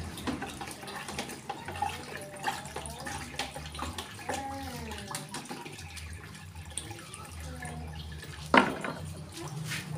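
Water splashing and trickling in a plastic bucket as it is filled and worked by hand, with small clicks and knocks throughout. A single sharp knock near the end is the loudest sound.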